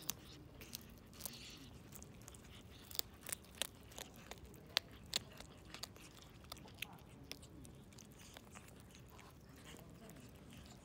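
A tabby kitten chewing and crunching food, making sharp, irregular crunches that come thickest in the middle.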